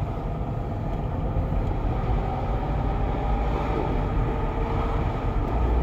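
Peugeot 307 1.6 driving, heard from inside the cabin: a steady low road and engine rumble with a faint thin whistle above it, the strange whistle that sounds while the car is moving.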